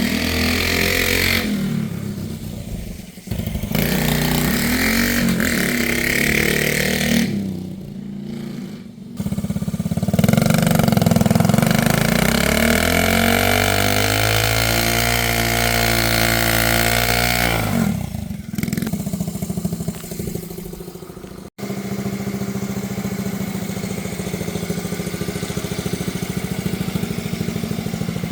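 1970 Honda Z50's small single-cylinder four-stroke engine running with its carburetor freshly adjusted, revved up and let settle back, its pitch sliding down and rising again through the middle. The sound drops away briefly a few times and breaks off sharply once.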